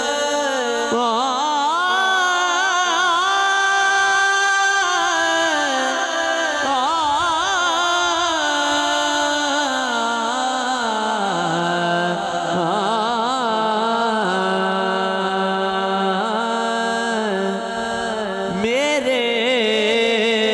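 A man singing a naat through a microphone, drawing out long held notes with wavering, ornamented turns of pitch and no clear words, as in a slow melismatic opening passage.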